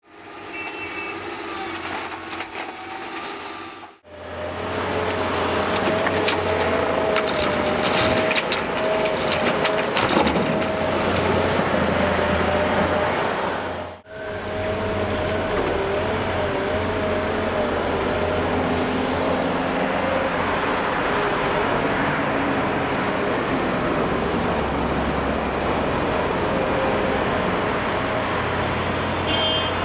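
Diesel engine and hydraulics of a Case 1188 wheeled excavator working, a steady low hum with a wavering whine on top, with clattering for a few seconds after the first break as the load goes in. The sound cuts out abruptly twice and resumes.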